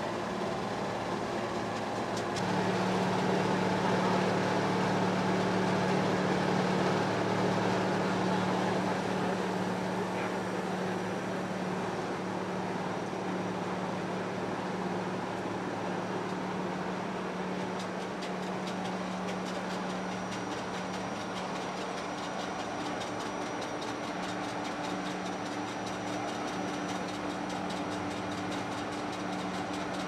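Machinery of a small feed pellet plant running: a steady electric-motor hum over dense mechanical noise from the mixer and screw conveyors. It grows louder about two seconds in and eases back after about eight seconds.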